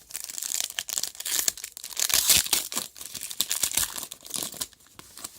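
Baseball card pack wrapper being torn open and crinkled by hand, a dense crackle that stops about four and a half seconds in.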